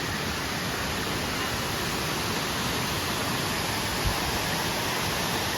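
Waterfall water rushing, a steady even hiss of falling water, with one brief low thump about four seconds in.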